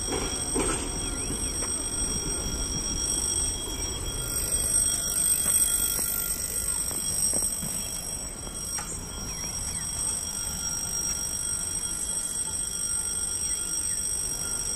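Level crossing warning signal sounding continuously: a steady high-pitched ringing alarm, with a low rumble underneath.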